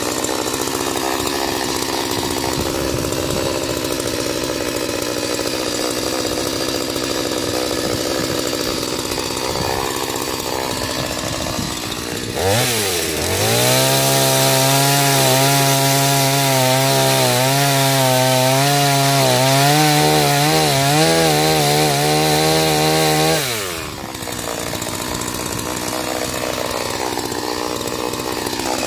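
Chainsaw running, used to clear a tree stump. About twelve seconds in it revs up to a steady high pitch for about eleven seconds, then drops back to its lower, rougher running.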